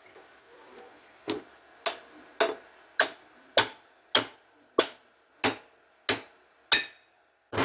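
Hammer striking the bearing bore at the centre of a Chevrolet Aveo's rear brake drum: about eleven steady metal blows, roughly one every 0.6 s, each with a short ring.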